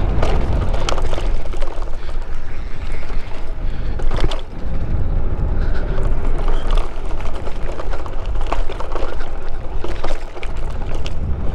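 Jackrabbit XG micro e-bike ridden fast along a dirt singletrack: a steady low rumble of wind on the microphone and tyres rolling on dirt, with sharp knocks and rattles as the small bike jolts over bumps, the hardest about four seconds in.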